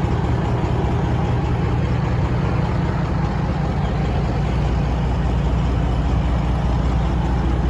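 12.7-litre Detroit Diesel inline-six, freshly overhauled, idling steadily in a Peterbilt 389 truck, a low even rumble.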